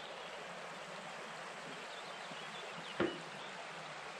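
Steady rush of a shallow, rocky mountain stream flowing over stones, with one sharp knock about three seconds in.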